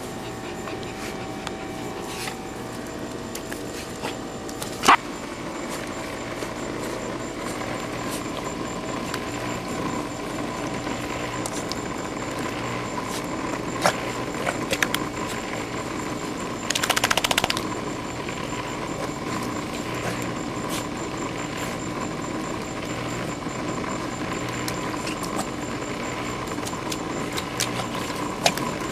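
Above-ground pool's filter pump running with a steady hum, pushing water out through holes bitten in its hose. A few sharp clicks and a short rattle about 17 seconds in.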